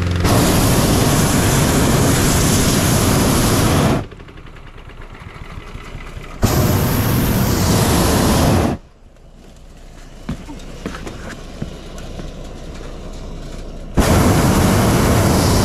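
Hot air balloon propane burner firing in three long blasts, each a loud steady rushing noise. The first lasts about four seconds, the second about two seconds in the middle, and the third starts near the end. The blasts are heating the envelope to stand the balloon up during inflation.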